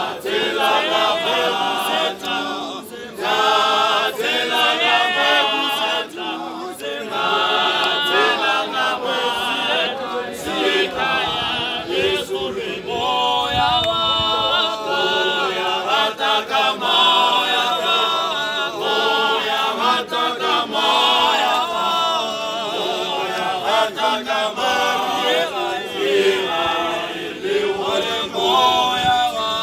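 Male church choir singing a cappella in harmony, many voices together without instruments.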